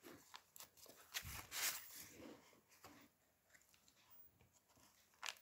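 Faint rustle of thick handmade paper journal pages being turned by hand, a few soft paper sounds in the first three seconds.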